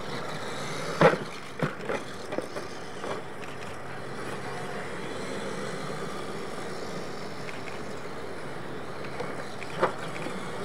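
Radio-controlled monster trucks driving over a dirt track, their running a steady noise, with a sharp knock about a second in and a few smaller knocks as they come down off the jump ramps, another near the end.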